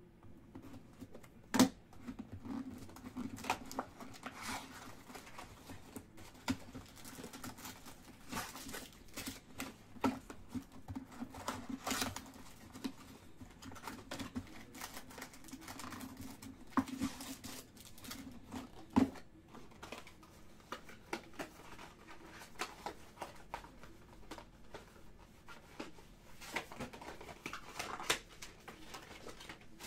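A 2018 Bowman's Best trading-card box being unwrapped and its foil-wrapped packs pulled out and stacked on a table: scattered crinkling and tearing of wrapper with sharp taps of cardboard and packs, the loudest about one and a half seconds in, about 19 seconds in and near the end, over a faint low hum.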